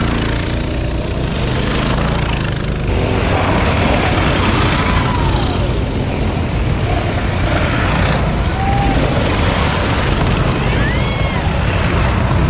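Mini bike engines running and revving as the bikes race around a dirt track.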